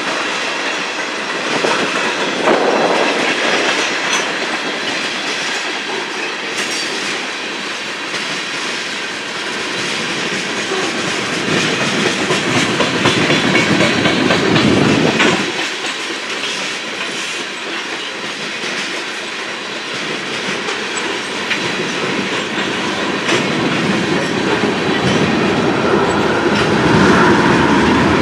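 Freight train's tank cars and covered hopper cars rolling past, a steady rumble of steel wheels on the rails.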